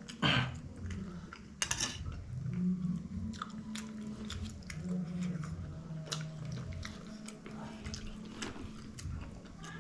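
Close-up eating sounds: chewing with many small wet mouth clicks, and two louder smacks in the first two seconds.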